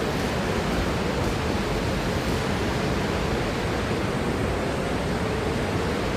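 Steady rushing roar of Superior Falls, heard from the overlook above it.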